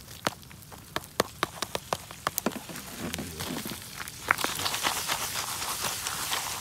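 Jiffy Pop popcorn popping in its foil pan over a campfire: scattered sharp pops at first, turning into denser, quicker popping with a sizzle about four seconds in.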